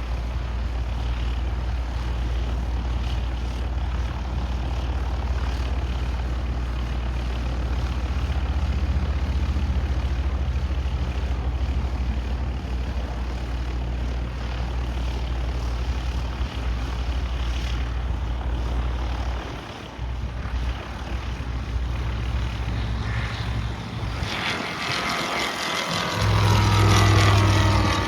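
Propeller engine of a Sling 2 light aircraft running with a steady low drone. The sound drops briefly about twenty seconds in, then swells near the end with a louder, shifting whine.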